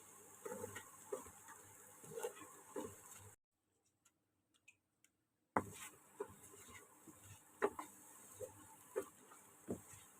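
Pumpkin and egg stir-frying in a pan: a steady sizzle with scattered spatula knocks and scrapes against the pan. It stops about three seconds in and starts again a couple of seconds later.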